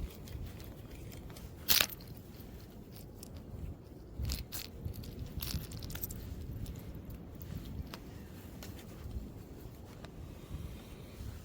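Fishing tackle being handled: scattered clicks and crunching scrapes, with one sharp click about two seconds in, over a low wind rumble on the microphone.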